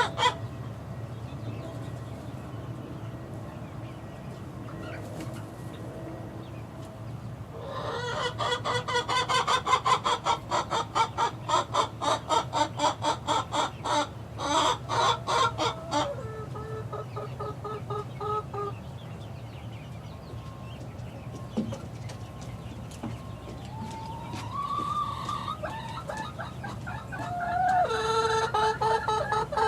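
Young chickens, about six weeks old, calling: after a quiet start, a fast run of repeated clucking calls for several seconds, then a few longer drawn-out calls and more calling near the end.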